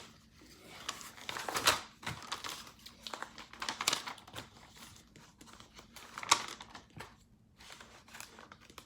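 Paper pages of a LEGO instruction booklet being leafed through, uneven crinkly rustling with three louder swishes.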